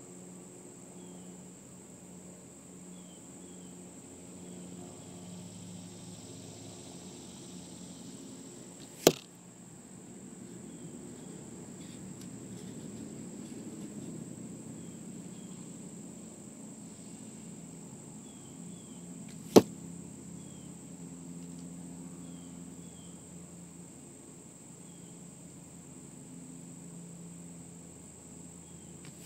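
Arrows shot from a longbow striking a foam-board target, each a single sharp thwack. The first lands about nine seconds in, the second about ten seconds later, and a third right at the very end.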